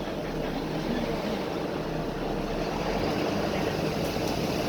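Inside a Volvo B9TL double-decker bus: its 9-litre six-cylinder diesel running beneath a loud, steady hiss that distorts the phone's audio.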